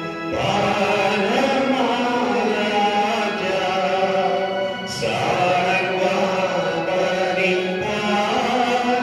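Liturgical chanting: a voice sings a slow, held melody in long phrases, with a breath about five seconds in.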